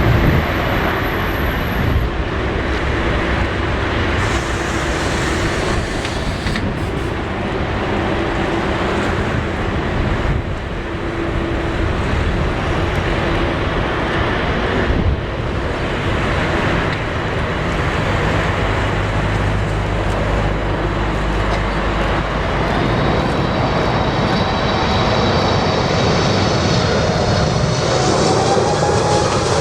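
Boeing 747-8 freighter's four GEnx-2B jet engines on approach, a steady loud jet rumble, with a high whine of fan tones coming in over the last several seconds.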